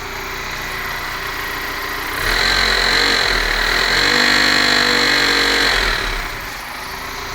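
BMW E46 318i's M43TU four-cylinder engine running with a knock, revved for about four seconds from roughly two seconds in, then dropping back to idle. The knock comes from the balance shafts, where a bearing shell has worn out.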